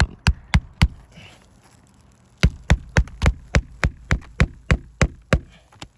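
Hammer driving a roofing nail into an asphalt shingle: four quick taps, a pause of about a second and a half, then about eleven steady blows at roughly three a second until the nail sits flush.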